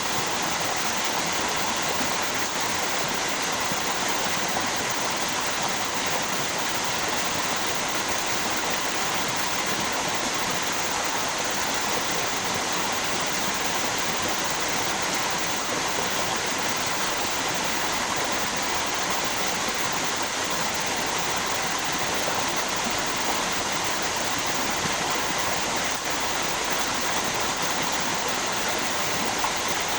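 River water flowing over a small waterfall: a steady, unbroken rushing, more hiss than rumble.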